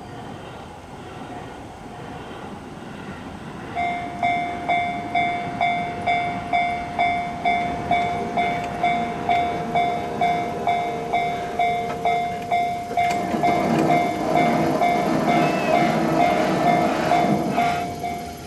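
Railway level-crossing warning bell ringing loudly from about four seconds in, a pitched ding repeating about twice a second. Near the end a train rumbles over the crossing, its wheels knocking on the rails, swelling and then fading while the bell keeps ringing.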